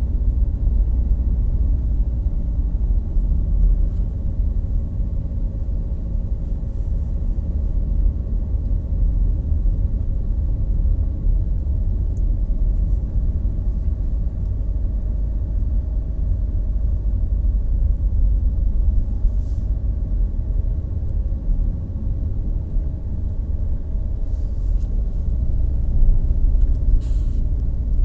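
Car interior road noise while driving: a steady low rumble of engine and tyres on asphalt, with a faint even engine hum.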